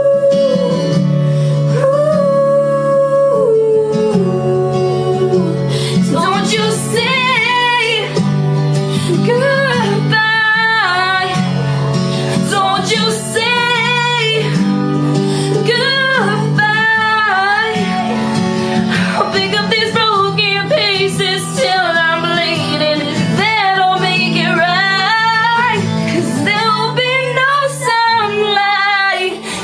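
Music: a slow pop song with wordless sung vocal runs over a steady accompaniment. The singing grows stronger about six seconds in.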